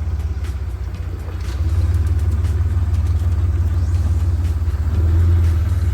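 Off-road vehicle engine running at low revs, a steady low rumble that grows louder about one and a half seconds in and swells again around five seconds.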